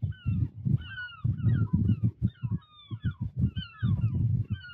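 Seagulls calling repeatedly as they mob a white-tailed eagle: many overlapping, short, down-slurred cries, over a loud, uneven low rumble.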